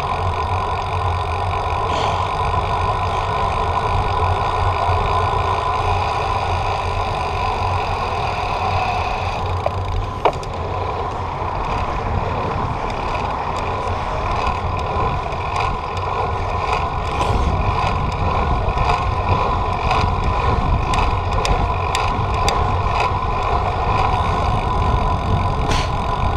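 Steady road and wind noise of a bicycle ride, picked up on the ride: a continuous low rumble and hum, with scattered light clicks in the second half.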